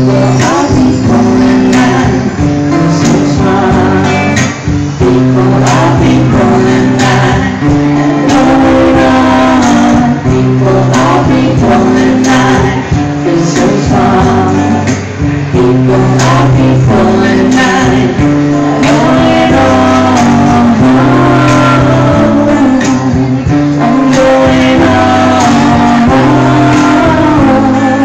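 Live acoustic duo: a man singing over a strummed acoustic guitar, with a steady hand-played cajón beat, amplified through PA speakers.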